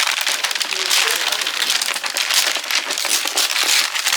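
Gift wrapping paper being torn and crumpled as a present is unwrapped: a dense, continuous crackling rustle.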